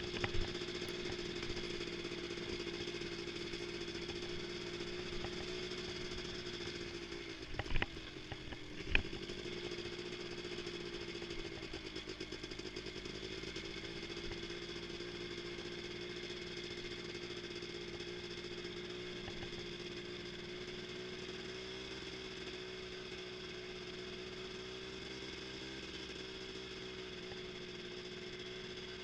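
Polaris Scrambler ATV engine running steadily at low speed while the four-wheeler is ridden slowly. The engine note dips briefly about eight seconds in, with two sharp knocks about a second apart.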